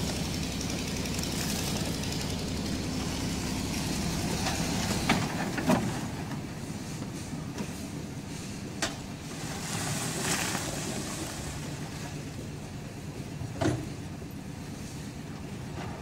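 Concrete mixer's engine running steadily, with sharp knocks from work at the mixer and wheelbarrows, a pair about five seconds in and others around nine and fourteen seconds.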